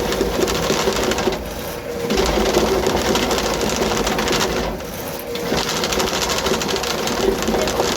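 Rothenberger R-650 drain cleaning machine running with a chain head on its cable: a steady motor hum under a fast, dense rattling clatter as the spinning chain head works through grease in the drain pipe. The clatter eases off briefly twice, about one and a half and about five seconds in.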